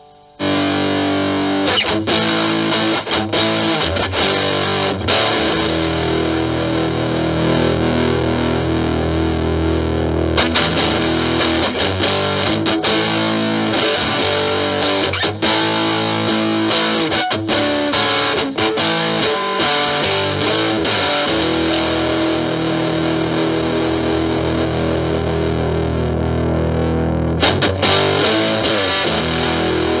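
Electric guitar (Stratocaster) played through an Electro-Harmonix Germanium 4 Big Muff Pi fuzz/distortion pedal, set for a classic Big Muff sound. It comes in suddenly about half a second in with thick, sustained distorted chords and riffs.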